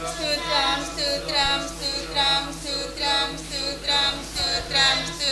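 Congregation voices singing together in a steady rhythm, about two syllables a second, between the leader's calls to praise.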